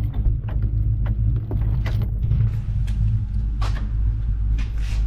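Garage door being opened: a steady motor hum with creaks and rattles from the door running up its track.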